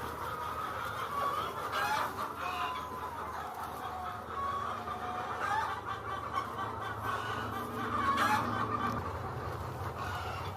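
A flock of chickens clucking and calling together, many short overlapping calls at once.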